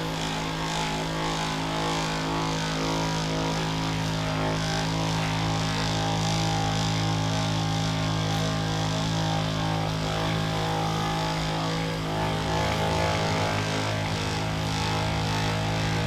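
Handheld percussion massage gun running steadily against a patient's lower back and glute muscles, its motor giving a continuous hum. The tone shifts slightly about twelve seconds in.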